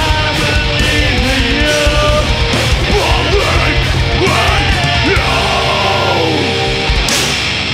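Metalcore band playing live: distorted guitars and bass with heavy drumming under harsh screamed vocals. A cymbal crash about seven seconds in closes the drumming, and the chord rings on.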